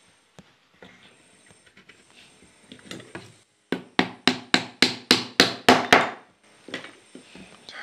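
Wooden mallet knocking the wooden bars of a traditional Korean lattice window together at their joints during a dry fit: about ten quick, sharp knocks, roughly four a second, after a few seconds of light clicks as the lattice pieces are handled.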